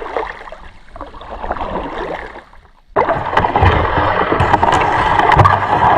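Kayak paddling: water splashing and gurgling off the paddle blades. There is a softer stretch, a brief lull, then louder, denser splashing from about three seconds in.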